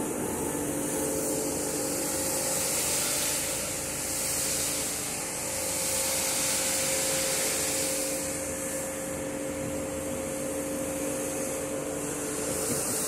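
A running machine: a steady motor hum under a loud hiss that swells and eases twice.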